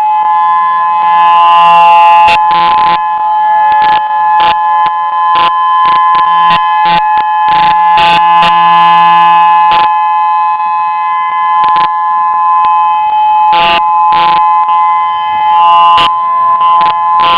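Federal Signal EOWS 612 electronic outdoor warning siren sounding a loud, steady two-pitch tone that holds without rising or falling, broken by frequent brief clicks.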